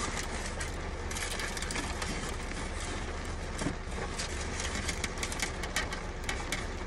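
Paper food wrappers crinkling and a plastic takeout tray clicking as fried chicken tenders are handled, with the crackles coming thicker after about five seconds. Under it runs a steady low rumble from the car cabin.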